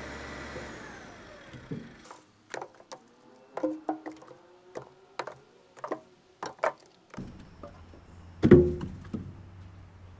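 Cut firewood logs being tossed onto a log pile and out of a loader bucket: a string of irregular hollow wooden knocks and clunks, some ringing briefly, the loudest about eight and a half seconds in. A steady mechanical hum fades out over the first two seconds and a low hum returns about seven seconds in.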